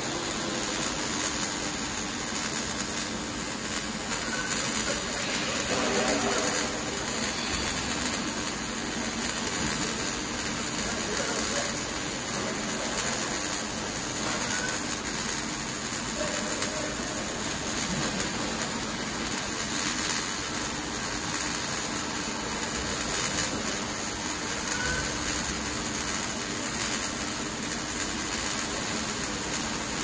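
Automatic arc welding machine welding the seam of a stainless steel water heater tank, the arc giving a steady, even hiss with a faint hum underneath.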